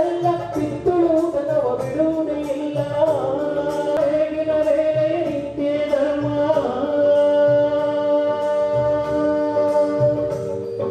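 A man singing a slow song with long held notes into a microphone, carried over the hall's sound system, with instrumental accompaniment.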